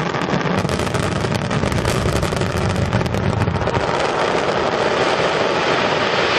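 Fireworks display: a dense run of crackling pops over a low rumble for about three seconds, then a steady noisy hiss.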